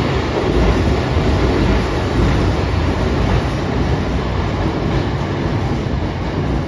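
Sanyo Electric Railway electric train passing through an underground station at speed without stopping: a loud, steady rumble of wheels and running gear on the rails.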